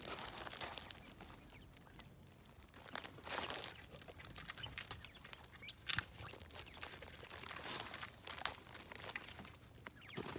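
Quail moving about on dry leaf litter: scattered rustling and crunching with small sharp clicks, and a few short louder scuffles.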